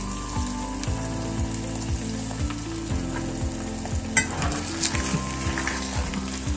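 Sunny-side-up eggs frying in a stainless pan, a steady sizzle, with a couple of sharp clicks about four and five seconds in.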